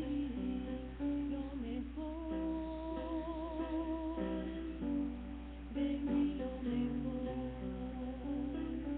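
A woman singing a solo hymn into a microphone over acoustic guitar accompaniment, holding one long note with vibrato about two seconds in. A steady low electrical hum runs underneath.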